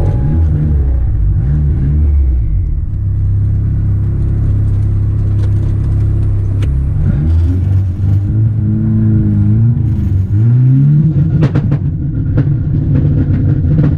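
Turbocharged four-cylinder engine of an Acura RSX revving hard, its pitch climbing and dropping back several times as it pulls through the gears, with a few sharp cracks near the end.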